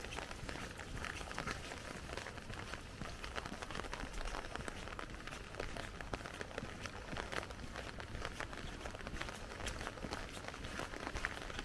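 Rain falling on an umbrella: a dense, irregular ticking of drops on the canopy that keeps up steadily throughout.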